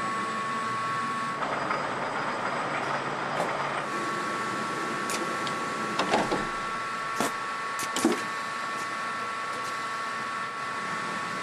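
Factory assembly-line noise: a steady machine whine and hum, with a few sharp metallic clanks in the middle.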